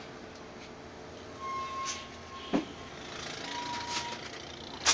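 Steady running noise of a bus's engine and road noise heard from inside the cabin as it drives a winding hill road. A short sharp knock comes about halfway, and two faint held high tones are heard.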